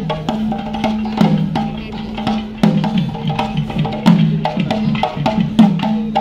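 Kerala temple drums carried by walking drummers, beaten in a fast, dense rhythm of sharp strokes. Under the strokes a low sustained tone switches back and forth between two pitches.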